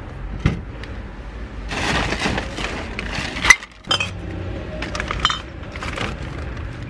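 Empty glass bottles clinking and knocking against each other as they are handled in plastic shopping bags, with the bags rustling. A single sharp glass knock stands out about three and a half seconds in.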